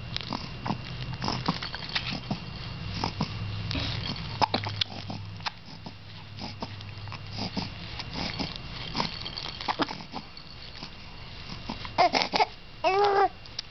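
A baby making scattered short sounds and soft vocal noises, then a brief high-pitched squeal near the end.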